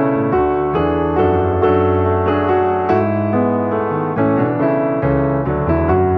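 Background piano music: a steady flow of notes with a sustained bass, no voice.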